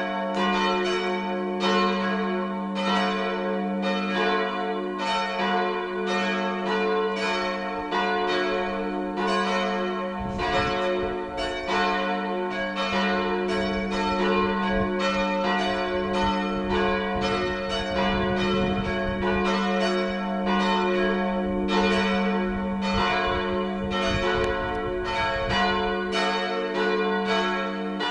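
Full peal of several church bells swinging together, their strokes overlapping in a steady irregular stream over a continuous ringing hum.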